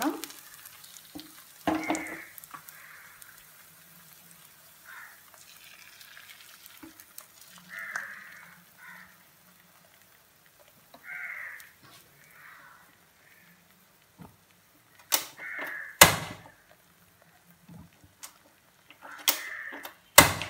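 Thin batter frying in oil in a non-stick pan with a faint, steady sizzle while a spoon spreads it. Near the end come a few sharp clicks, the loudest about three-quarters of the way through.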